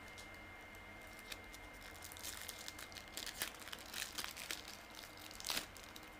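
Panini Adrenalyn XL football trading cards and their foil pack wrapper being handled: rustling and crinkling as cards are shuffled and flipped, a run of small crackles from about two seconds in with the sharpest snap near the end.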